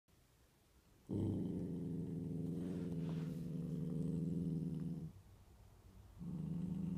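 Husky–Samoyed puppy growling, low and steady, at its own reflection in a mirror: one long growl of about four seconds starting about a second in, then a second growl near the end.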